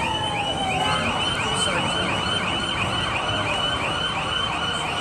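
A high, rapidly repeating electronic warble, about three sweeps a second, like an alarm or siren, over steady background noise. A lower falling tone fades out about a second in.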